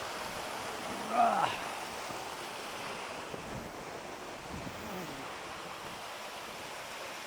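Steady rush of a tall waterfall, water falling about 60 metres onto rock. A short vocal sound from a person rises over it about a second in.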